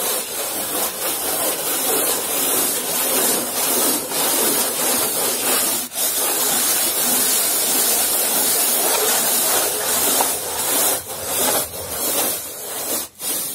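Hand sanding float rubbing across expanded-polystyrene insulation boards, a continuous scratchy rasping, with a brief break about six seconds in: the boards are being sanded level as surface preparation for an external wall insulation system.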